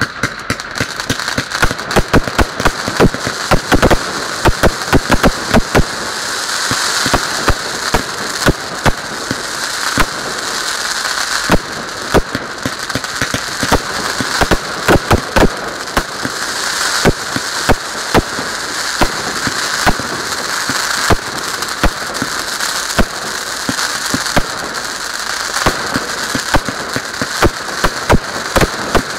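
Firework display: a rapid, irregular string of sharp bangs and pops from bursting fireworks, over a steady crackling hiss. The bangs come thickest in the first six seconds or so.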